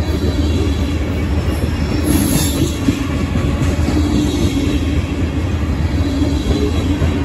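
Freight train of covered hopper cars rolling steadily past at close range, steel wheels on the rails giving a continuous rumble and clatter. A brief high-pitched wheel squeal comes about two seconds in.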